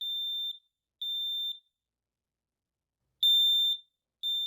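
Kidde KN-COSM-B combination smoke and carbon-monoxide alarm sounding its smoke signal: high-pitched half-second beeps in the temporal-three pattern. Two beeps a second apart, a pause of about a second and a half, then two more beeps. The three-beep pattern is the standard fire-evacuation signal for smoke detected.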